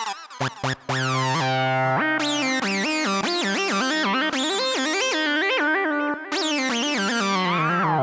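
Yamaha Montage M8x synthesizer playing a synth patch: quick lead notes with gliding pitch over a held bass note, with short stabs near the start and a falling sweep about a second in, the notes dying away near the end.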